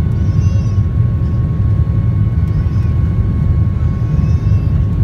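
Steady low rumble of a jet airliner's engines and rushing air, heard from inside the passenger cabin during the climb after takeoff, with a faint steady hum.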